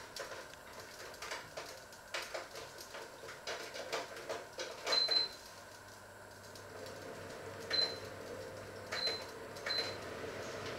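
Kitchen items being handled at the counter: scattered light clicks and knocks, with four short high pings in the second half.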